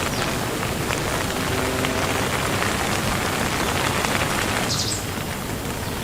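Steady rain falling, a continuous dense hiss, with a short high chirp near the end. The rain drops slightly in level about five seconds in.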